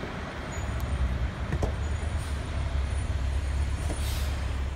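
Steady low rumble of road traffic, with trucks and cars passing on an elevated highway overhead.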